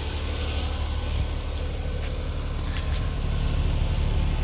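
Lexus IS300's 2JZ-GE VVTi straight-six engine running steadily at about 1500 RPM to break in newly fitted Brian Crower camshafts, getting slightly louder near the end.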